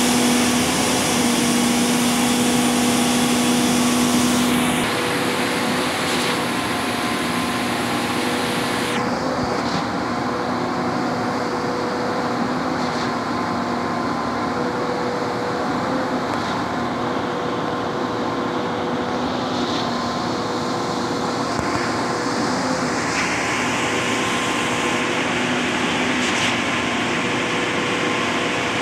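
Concrete pump truck running steadily with a constant hum as concrete is pumped through its boom hose into a raft foundation.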